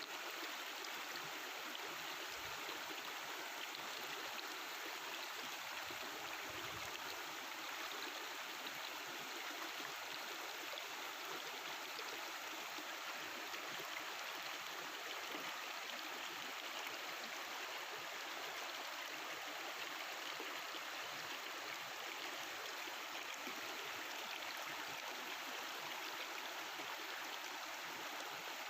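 Mountain river flowing over rocks: a steady babbling and rushing of water that does not change.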